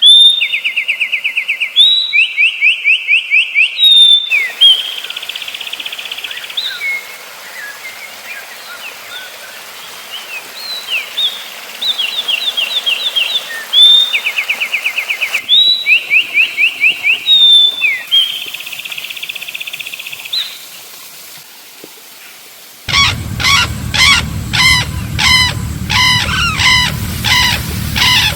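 Songbirds singing: repeated short phrases of fast, high-pitched trills. About 23 seconds in, a low hum sets in under a different series of rhythmic calls.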